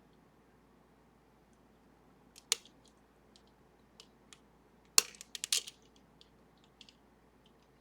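Lock picks working the guard-side lever pack of a Sargent & Greenleaf 4440 series safety deposit box lever lock: faint metal ticks, a sharp click about two and a half seconds in, and a louder click about five seconds in followed by a quick run of clicks.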